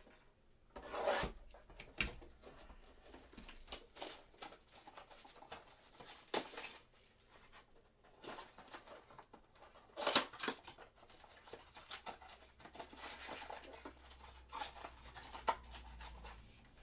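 Cardboard trading-card blaster box being opened from the bottom and its wrapped card packs slid out: scattered rustling, scraping and crinkling, with a few sharp clicks. The loudest moments come about a second in and at about ten seconds, and a longer spell of rustling follows near the end.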